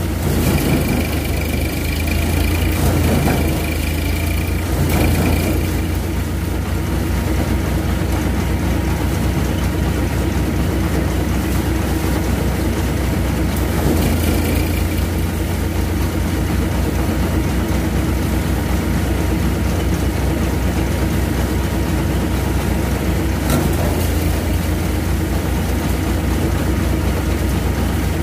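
Dashmesh paddy thresher running steadily with its drive engine, a constant low hum, while bundles of rice straw are fed into its threshing drum.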